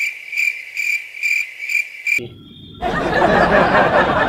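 Cricket-chirp sound effect, an even high chirping about two and a half times a second over dead silence, the stock gag for an awkward pause; it cuts off about two seconds in. After a brief gap, men laugh and chuckle.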